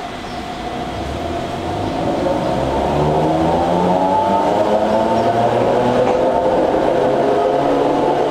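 Sangi Railway Hokusei Line narrow-gauge electric car running with its nose-suspended traction motors: a motor-and-gear whine of several tones that bend in pitch. It grows louder over the first three seconds, then holds steady.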